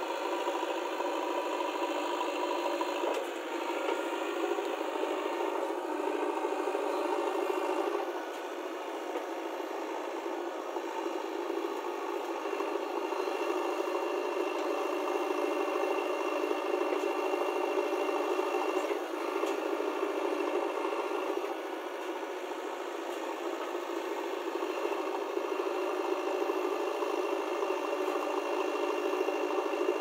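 JCB 3DX Eco backhoe loader's diesel engine running steadily under hydraulic load as the backhoe arm digs and lifts soil. Its note shifts in level a few times as the arm works, with a few faint knocks.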